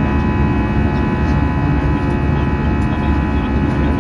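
Airbus A320 cabin noise in flight, heard from a window seat over the wing: the engine's steady drone, a deep rumble with several steady whining tones above it.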